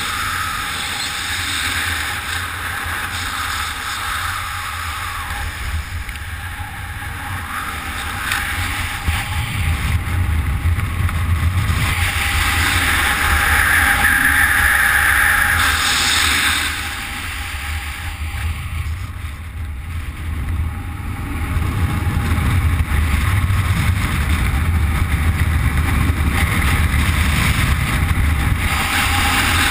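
Wind rushing and buffeting over the camera's microphone from the fast airflow of a speedgliding flight: a loud, deep rumble with hiss on top. It eases for a few seconds about two-thirds of the way through, then builds again.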